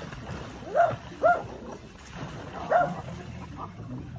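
Small dog barking: three short, sharp barks, two about half a second apart and a third about a second and a half later.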